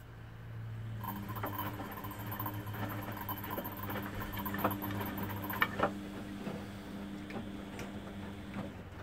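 Front-loading washing machine drum turning a wet wash load. A motor hum starts about a second in and stops near the end. Sloshing, scattered clicks and knocks come with it, and a higher whine runs until about halfway, ending with a clunk.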